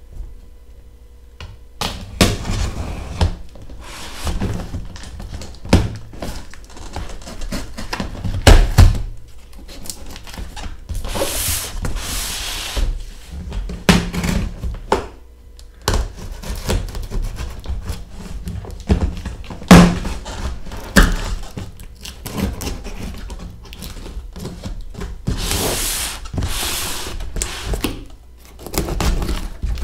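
A cardboard shipping box being cut open and handled on a table: knocks and thunks as it is shifted and turned, cardboard rubbing, and two longer tearing sounds of packing tape, near the middle and near the end.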